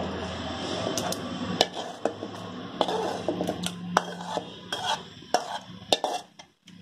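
Metal spatula scraping and clinking against a metal pan as thick mutton curry is scraped out into a pressure cooker, with irregular knocks of metal on metal over a low steady hum that fades out about five seconds in.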